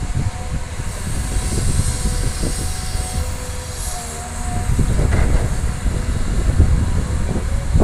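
Caterpillar hydraulic excavator's diesel engine working with a low, uneven rumble as it swings a bucket of dirt over a dump truck and empties it into the bed. A faint steady whine runs through the first half, and the rumble grows louder in the second half.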